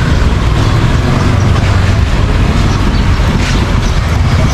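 Steady street traffic: a continuous low rumble of passing vehicle engines.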